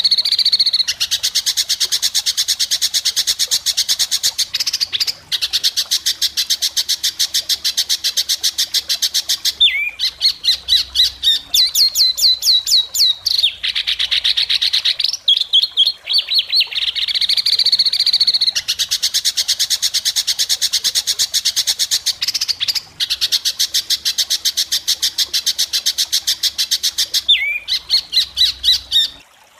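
Songbird singing harsh, rapid 'tembakan kasar' trills: long runs of very fast repeated notes in phrases a few seconds long, broken by short pauses and a few rising chirps. The song stops just before the end.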